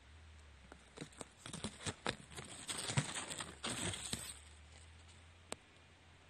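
Close rustling and crackling, a dense run of small clicks and scrapes for about three seconds, then a single sharp click near the end.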